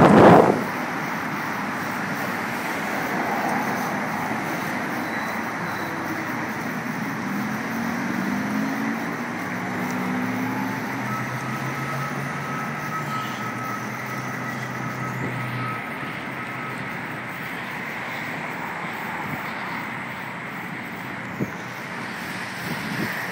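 Road traffic noise heard from a moving vehicle: a steady rush of engines and tyres, with one engine's note rising slightly about eight seconds in and a steady low engine hum a few seconds later.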